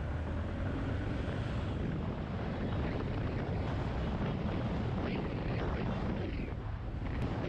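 Yamaha XT250 Serow's single-cylinder engine running while the bike rides along, under a steady low rumble of wind and road noise.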